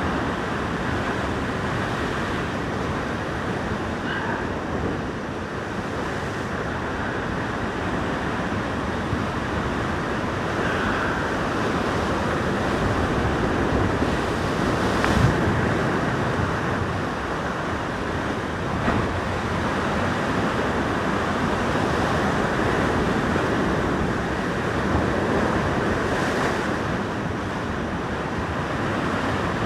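Heavy ocean swell surging and breaking against a rock ledge, a continuous wash of surf, with wind buffeting the microphone. A single sharp knock about halfway through.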